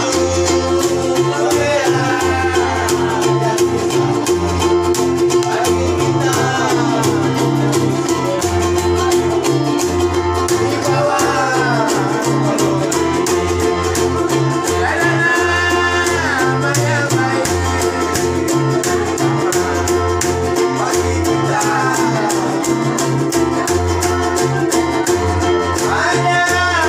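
Ambai praise song played by a small string band: ukuleles strumming a steady quick rhythm over a plucked homemade upright bass line, with an electronic keyboard and male voices singing.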